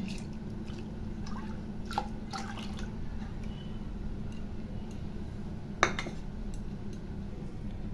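Moong dal tipped into a pot of warm water, then faint drips and small ticks from the water over a steady low hum, with one sharper click about six seconds in.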